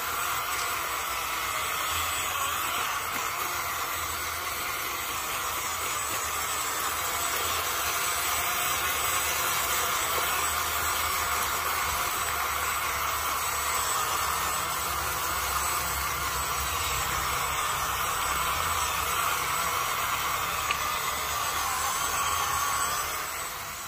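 Electric drive motor and geared axles of a WPL B16 6x6 RC truck whining steadily under hiss as it crawls through mud. The sound drops in level just before the end.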